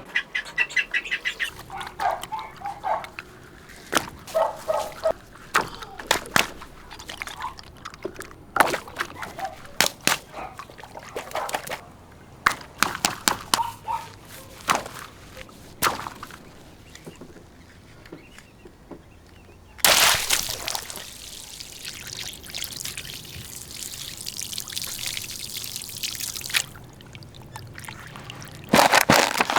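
Water pouring and sloshing as a stretchy toy is filled, with many sharp handling knocks and squeaks, and a steady rush of water for about six seconds in the second half.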